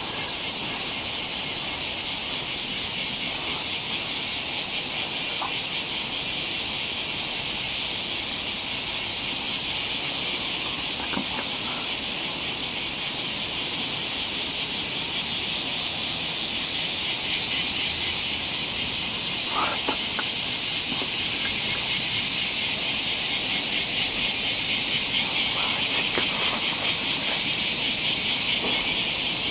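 A steady, shrill chorus of insects with a fast, even pulsing, getting a little louder near the end.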